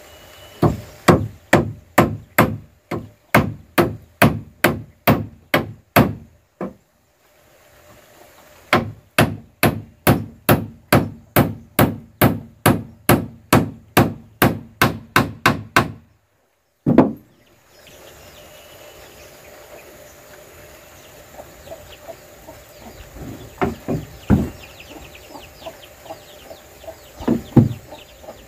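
Hammer driving nails into a wooden board: two long runs of steady, evenly spaced blows, about two and a half a second, with a short pause between them. After a cut, one loud knock, then scattered lighter knocks of wood on wood near the end.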